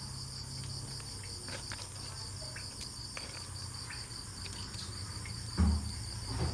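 Crickets chirping in a steady, evenly pulsing trill over a low steady hum, with a few faint clicks and a brief low thump about five and a half seconds in.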